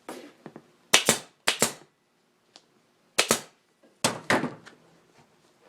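Staple gun firing staples to fix a seat cover to a motorcycle seat pan: several sharp snaps about a second apart, some in quick pairs.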